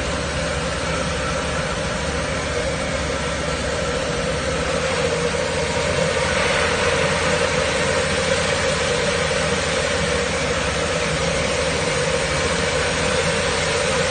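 Rice milling machine running with a steady hum, milled white rice pouring from its outlet chute in a continuous hissing stream. The hiss grows brighter about five seconds in.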